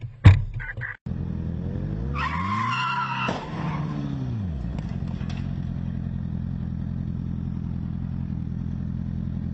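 A sharp knock, then a car engine revving up and back down with a brief tyre screech, settling into a steady running drone.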